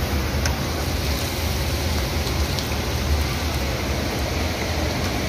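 Broth pouring in a steady stream from a metal bowl into a large aluminium cooking pot, a continuous splashing rush over a steady low rumble.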